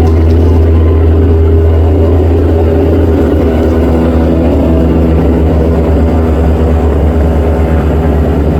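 Engine of a pest-control spraying machine running steadily with a loud, low, unchanging drone.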